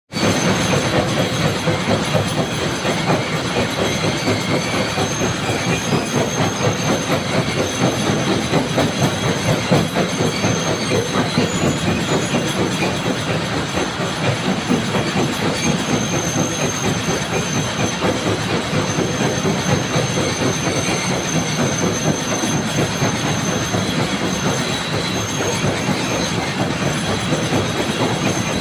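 Stone crusher running, breaking rocks with a loud, steady, dense clatter.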